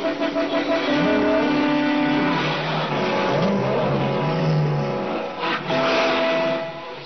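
Background music with long held notes and slow sliding pitches. A noisy swell rises around five and a half seconds in before the sound drops away near the end.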